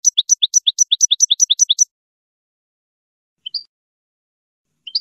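European goldfinch calling: a quick run of about eight paired twittering notes, a high note then a lower one, over the first two seconds, followed by two short single calls later on.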